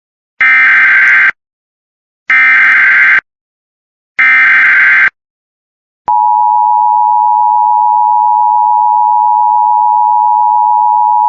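Emergency Alert System SAME header: three bursts of raspy digital data tones, each just under a second long with about a second between them. About six seconds in, a loud steady attention tone starts and holds, signalling that an alert message is about to be read.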